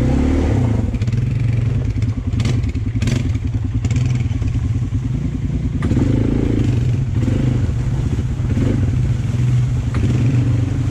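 A motor vehicle's engine running steadily, with a few short clicks about two to three seconds in.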